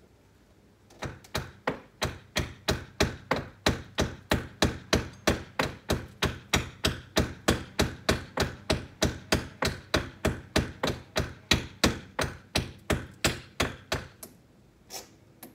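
Hammer driving a nail into a window frame to fix it in its opening: a long run of quick, even blows, about three a second, stopping about a second before the end, then two lighter knocks.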